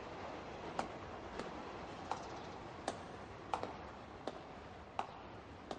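Footsteps: sharp clicking steps at an even walking pace, about one every three-quarters of a second, over a faint steady hiss.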